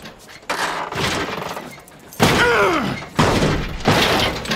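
A series of heavy thuds and crashes, four in about four seconds, with a man's grunts falling in pitch among them: a fight or struggle in an animated film soundtrack.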